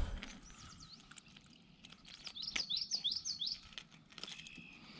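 A small bird singing faintly: a quick run of about six repeated, slurred high notes starting about two and a half seconds in, with a few softer notes before it.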